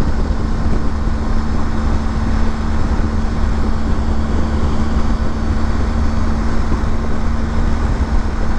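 Steady wind rush, road noise and engine drone of a BMW GS motorcycle cruising at about 124 km/h in sixth gear on a wet motorway, with a constant hum underneath.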